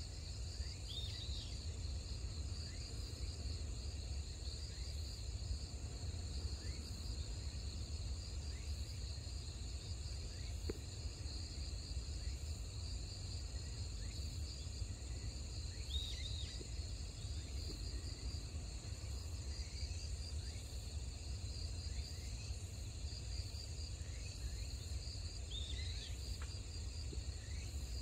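Steady chorus of insects, continuous and high-pitched, over a constant low rumble. A few brief high chirps come through about a second in, midway and near the end.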